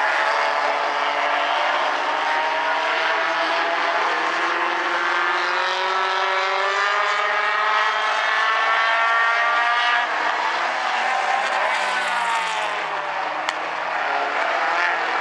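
Several small four-cylinder Bumblebee-class race cars running at speed, their engines rising steadily in pitch as they accelerate, then dropping back as they lift off. A single sharp click near the end.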